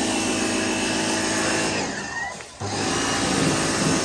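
Ryobi pressure washer running steadily, motor hum and water jet spraying. About two seconds in, the machine drops out with a falling pitch, then cuts back in at full level half a second later.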